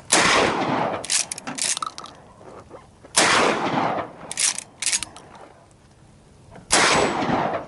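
Three loud gunshots about three and a half seconds apart, each trailing off over about a second, with fainter short cracks in between.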